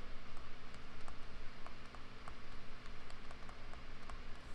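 A tablet stylus tapping and scratching on the screen during handwriting, making light, irregular clicks over a faint steady hum.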